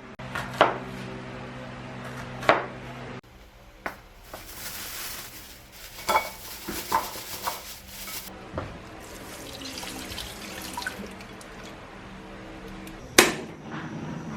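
Water running from a kitchen tap into a sink for about four seconds, with dishes and utensils clinking and knocking; the sharpest knock comes near the end.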